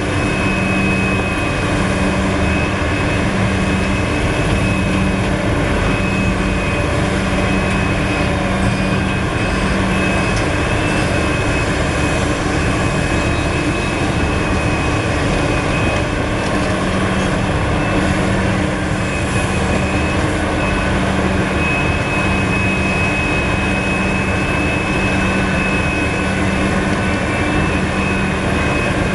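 Liebherr R974 crawler excavator's diesel engine running under load as it digs and swings to load a haul truck: a loud, steady heavy-machine drone with a high whine over it, its low engine note dropping away and coming back with the work.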